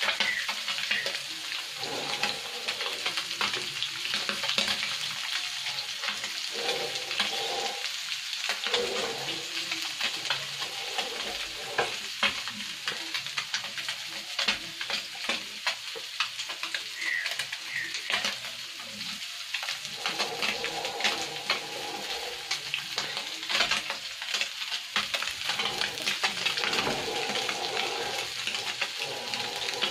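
Small puti fish (pool barbs) deep-frying in hot oil: steady sizzling with a dense crackle of popping oil.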